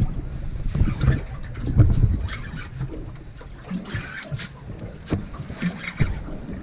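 Fishing boat drifting on open sea: water slapping against the hull under a low rumble, with irregular knocks and thumps about every second.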